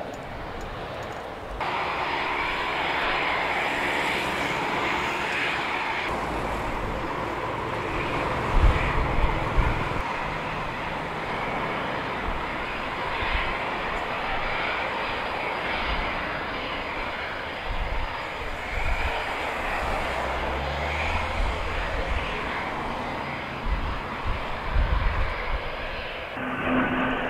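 Eurofighter Typhoon's twin Eurojet EJ200 turbofans at takeoff power, a loud steady jet noise as the fighters roll down the runway and lift off, with low rumbling swells about a third of the way in and again near the end.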